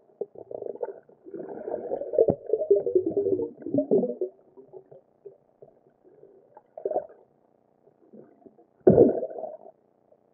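Muffled gurgling and rumbling of water heard through an underwater camera's housing, in irregular bursts: a long stretch in the first few seconds, a short burst in the middle, and a louder burst near the end.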